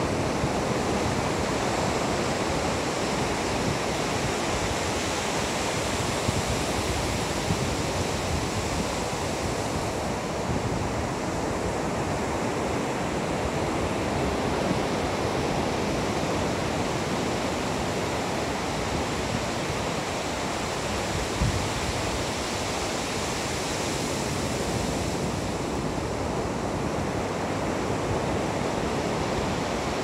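Ocean surf breaking on a sandy beach: a steady, continuous wash of waves.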